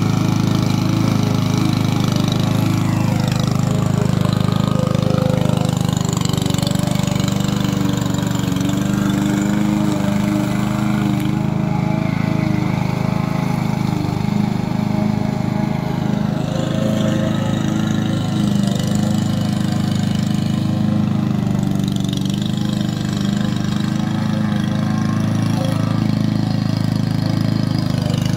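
Petrol walk-behind lawn mower engine running steadily at a constant pitch while cutting grass.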